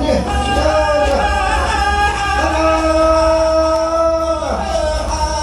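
Music: a singer's voice with gliding notes and one long held note, over a steady low accompaniment. This is the song for a Native American hoop dance.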